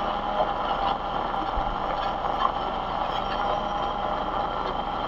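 A multirotor drone's motors and propellers whirring steadily, a continuous hum with several held pitches.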